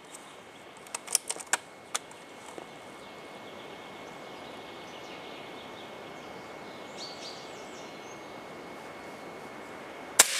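Hatsan AT44-10 .22 PCP air rifle: a quick run of metallic clicks about a second in as the side lever is cycled to chamber the next pellet, then a sharp shot near the end with a short ringing tail.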